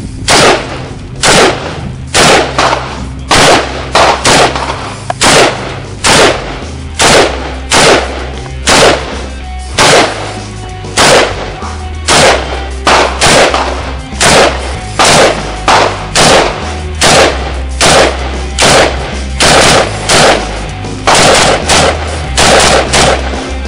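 AK-47 rifle fired in semi-automatic single shots at a steady pace, a little more than one a second, about thirty in all. Background music with a steady bass plays underneath.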